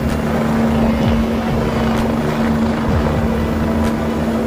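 Helicopter running on a rooftop helipad: a steady droning tone over a low, even churn.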